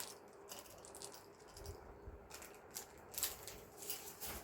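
Small hard objects being handled: a scatter of light clicks and rattles, busier after about three seconds.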